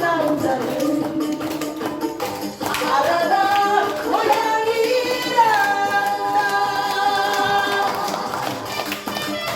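Song music with a singing voice over a steady percussion beat. A long note is held through the second half.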